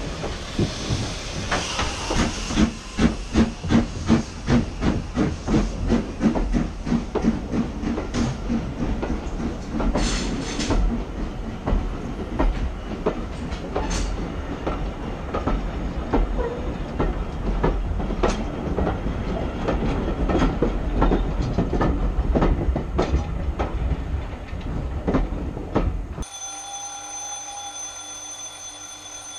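Steam saddle-tank locomotive pulling away with its train, its exhaust chuffing in quick even beats for the first several seconds. Then the coaches roll past with wheel clicks and rattles over the rail joints. After a sudden cut near the end, a steady electric ringing.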